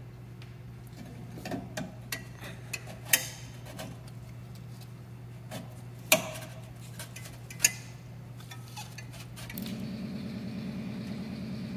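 Stainless steel exhaust pipes and clamps clinking and tapping as the interpipes are slid together and fitted: scattered sharp metallic clinks, a few ringing briefly, over a steady low hum.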